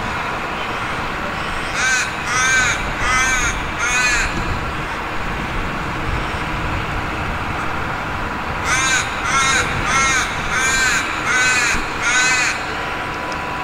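A crow cawing in two runs of short, harsh calls, four in quick succession and then, after a pause of about four seconds, six more, over a steady outdoor background hiss.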